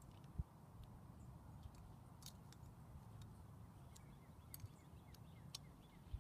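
Near silence: faint open-air ambience with a low rumble, a single brief low thump about half a second in, a few faint sharp ticks, and soft short chirps near the end.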